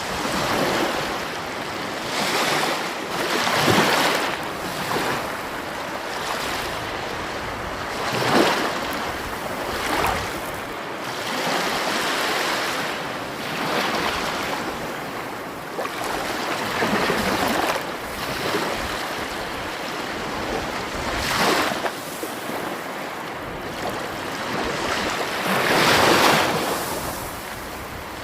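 Sea waves breaking and washing on the shore, a continuous rushing that swells into louder surges every few seconds, strongest about four, eight, twenty-one and twenty-six seconds in.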